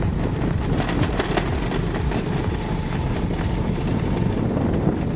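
Steady engine and road noise of a vehicle being driven along, with no sudden changes.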